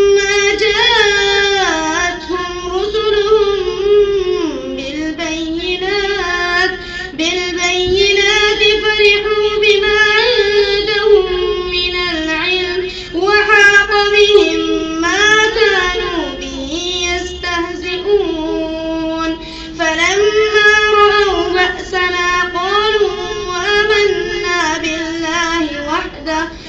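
Qur'an recitation chanted in a high voice: long melodic phrases with drawn-out, ornamented notes, broken by a few short pauses for breath.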